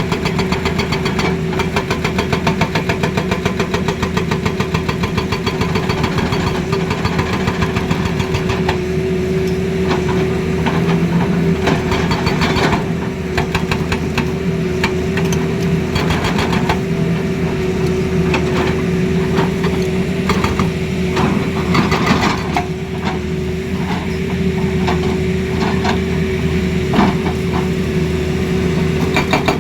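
Hydraulic excavator running, its engine and hydraulics giving a steady whine with a fast, even knocking over the first half, then separate irregular knocks.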